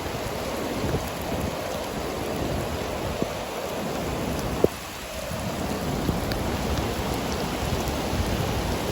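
Steady rushing of water, with a deep rumble underneath and a sharp click a little over halfway through.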